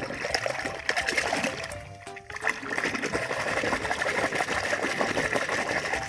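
Water splashing and churning as a small plastic toy truck is swished and scrubbed by hand in a shallow stream.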